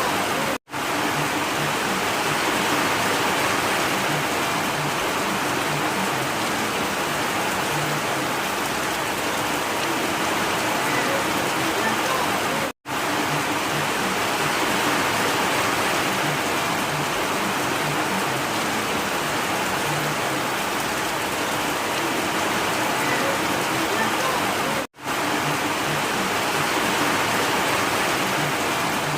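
Steady rain, an even hiss of falling drops, broken three times by a split-second dropout to silence about twelve seconds apart.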